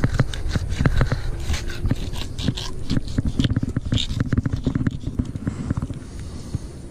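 Fillet knife cutting along a tripletail's backbone: a rapid run of small crunching clicks and scrapes that thins out after about five seconds.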